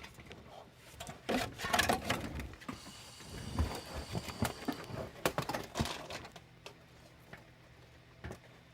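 Irregular clicks and knocks of tools and hands working at a car's hydraulic brake pump, with a faint hiss in the middle. A low steady hum sets in near the end.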